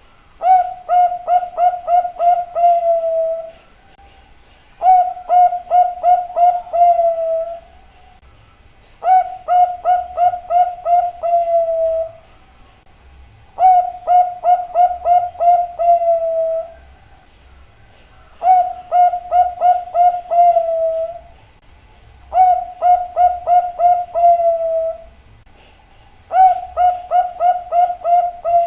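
Zebra dove (perkutut) cooing in seven bouts. Each bout is a quick run of about six clipped notes ending in a longer drawn-out note, repeated every four seconds or so.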